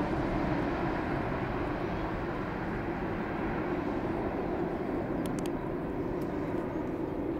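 Airbus A330-300 twin-engine jet airliner climbing out after takeoff: a steady, rumbling jet engine noise that slowly fades as the plane flies away.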